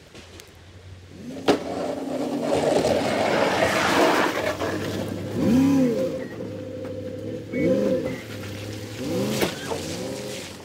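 Pickup truck plowing snow with a SnowDogg MD80 blade: the engine runs under load with a sharp knock about a second and a half in, then a rushing scrape of the blade pushing snow over pavement that swells for a few seconds. After that the engine revs up and back down three times as the truck manoeuvres.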